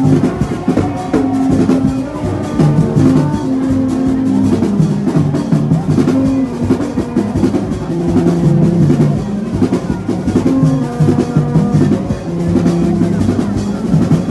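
Dense, fast drumming with a melody of held notes over it, which fits Vodou ceremony music.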